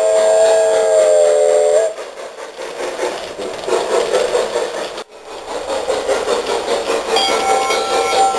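G scale model steam locomotive's sound unit blowing a multi-note steam whistle chord that cuts off about two seconds in. Then comes the steady running rumble of the train moving along the track, and a set of high steady tones comes in near the end.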